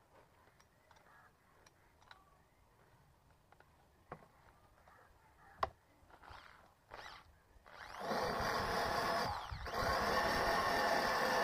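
A power drill with a few light clicks and taps, then spinning up about eight seconds in and running steadily, slowing briefly and picking up again. It is scouring rust off a car's steel battery base.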